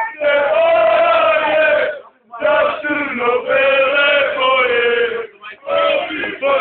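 A crowd of Partizan Belgrade supporters chanting together in men's voices, holding long sung lines. The singing breaks off briefly about two seconds in and again near the end before picking up.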